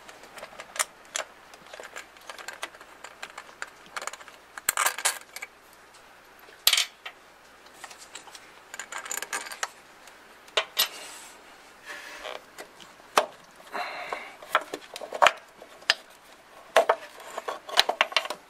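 Hand tools and small metal parts clinking, clicking and knocking at irregular intervals, with short scrapes, while the coolant water neck and its hose are unbolted and worked off the engine.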